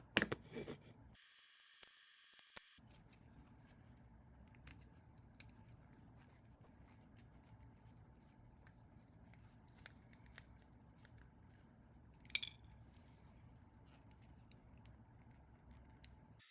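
Scattered small clicks and scrapes of hands working on a small plastic toy, with a brief clatter at the start and sharper clicks about twelve seconds in and near the end.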